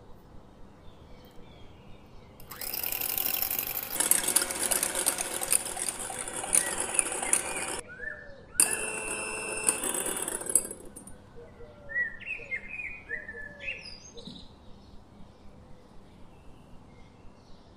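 Electric hand mixer whisking a foamy liquid in a glass bowl, running for about five seconds, stopping briefly, then running about two seconds more. Birds chirp several times after the mixer stops.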